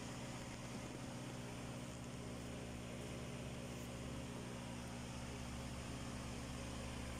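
Aquarium equipment humming steadily, a low electrical hum with a faint hiss and no change in level.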